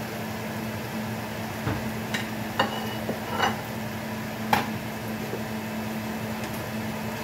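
Cooking utensil clinking and knocking in a frying pan of eggs and spinach, about five sharp knocks, some ringing, between two and five seconds in, over a steady hum.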